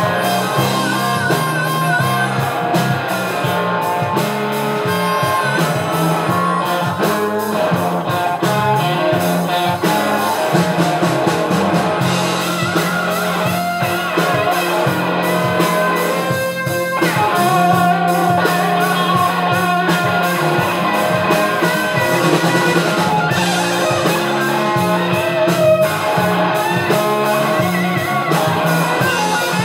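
Live blues band: a harmonica played into a vocal microphone, its wavering, bending notes leading over electric guitars and drums.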